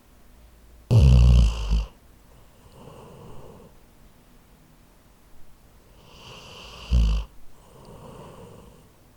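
Labrador snoring in its sleep: two loud snores about six seconds apart, each followed by a softer breath out.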